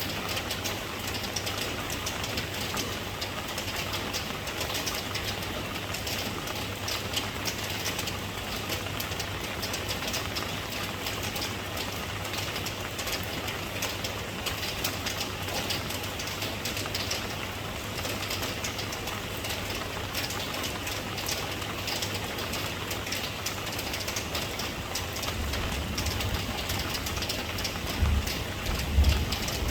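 Steady rain falling, an even hiss with a fine patter of drops. A few short low thumps come near the end.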